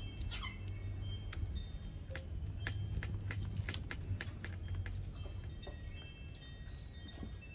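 Scattered light clicks and scrapes from a small metal blade worked by hand against a coconut sprout. Several steady high ringing tones and a low rumble run underneath.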